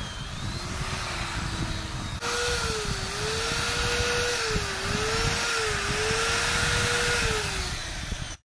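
Electric hand drill spinning a cone-shaped bit, countersinking a drilled hole in a teak wood stock. The motor note steps up about two seconds in, then sags briefly several times as the bit bites into the wood, and it cuts off just before the end.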